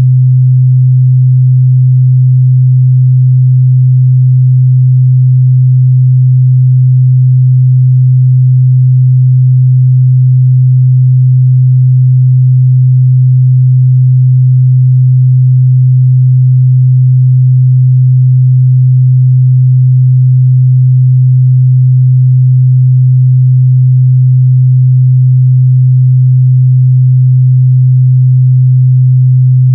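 A steady, loud 128 Hz pure sine-wave test tone, a single unchanging low hum.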